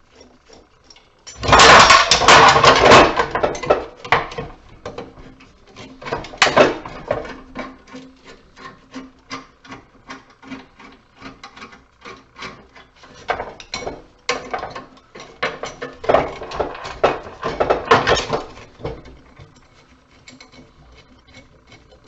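Scraping, rasping and clattering of metal parts being worked apart by hand during scrapping, with many sharp clicks. A loud, long scrape starts about a second and a half in, and another loud stretch comes near the end.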